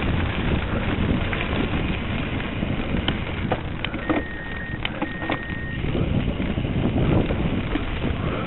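Wind buffeting an on-bike camera's microphone while a cyclocross bike rides over a grass and leaf course, with a low, steady rumble and a few sharp rattling clicks from the bike. About halfway through, a thin, high, steady tone sounds for under two seconds, broken once.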